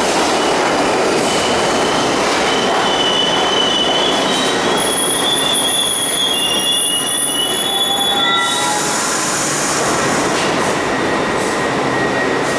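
New York City Subway 7 train on the IRT Flushing Line running in the station, with a steady loud rumble and high steel-wheel squeals that come and go for the first eight seconds or so. A burst of hiss about eight seconds in.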